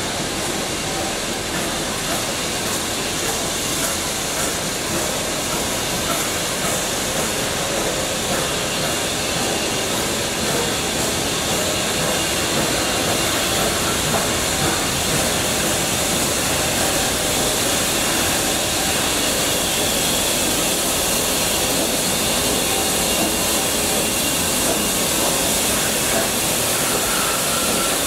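Steam locomotive 3801, a C38 class Pacific, drifting slowly in tender-first with a steady hiss of steam and train noise that grows slightly louder as it nears.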